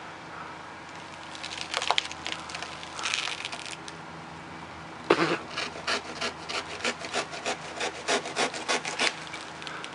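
Hand pruning saw cutting through the woody base of a palm frond. A few scraping strokes come about two seconds in, then steady back-and-forth sawing at about three strokes a second from about halfway.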